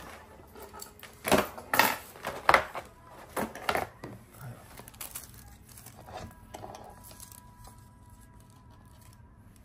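Stiff clear plastic packaging tray and its lid being handled and pulled apart, crinkling and crackling in a run of loud bursts in the first few seconds, then fainter rustles.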